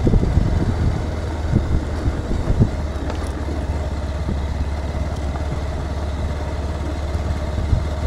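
Motorcycle engine running steadily on the move, under a constant low rumble of road and wind noise, with a few short low thumps in the first three seconds.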